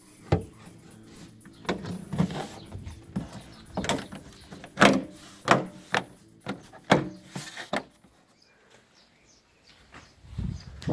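Plastic car trim and brake-light parts being handled: a run of sharp clicks and knocks with short scrapes, then a lull and a couple of low thumps near the end.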